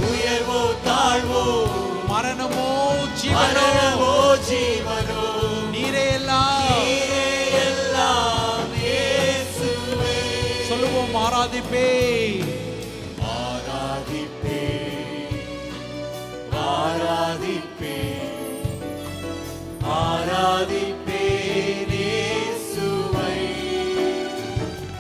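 Tamil Christian worship song: several voices singing together over keyboard, acoustic guitar and drums. The music gets softer for a few seconds in the middle, then builds again.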